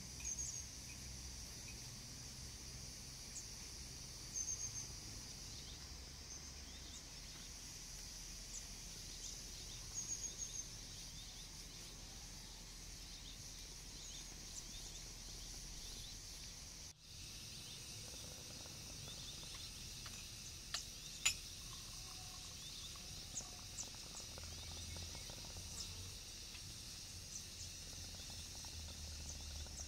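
Outdoor ambience of steady high insect chirring with a few brief, high bird chirps in the first third. Two or three sharp clicks come about two-thirds of the way through and are the loudest sounds.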